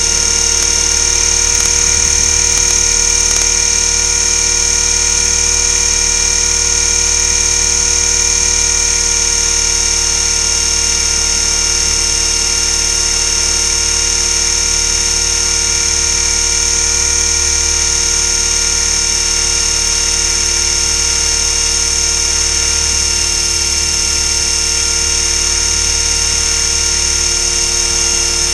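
Align T-REX 500 electric RC helicopter running at a steady speed, heard from a camera strapped to its frame: a loud, unchanging high whine from the motor and gears over a low rotor drone.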